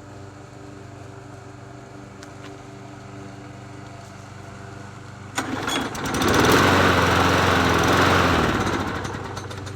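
Bolens push mower's small engine catching about five seconds in, running loudly for about three seconds, then slowing and dying out. A steady low hum lies under it throughout.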